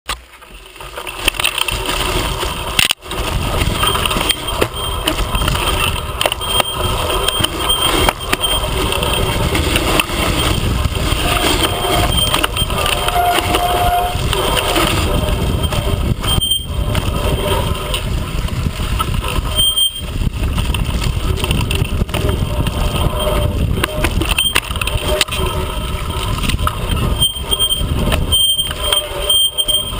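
Mountain bike riding a forest trail, heard through a camera mounted on the bike: a steady rush of wind and knobby tyres rolling over dirt and dry leaves, with the bike and mount rattling over bumps.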